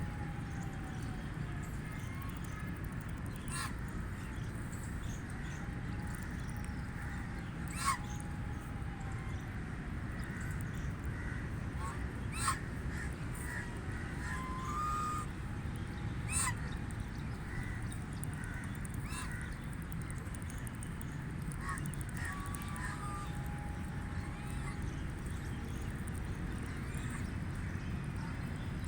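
Canada geese honking: scattered short honks every few seconds, the three loudest near the middle, over a steady low background rumble.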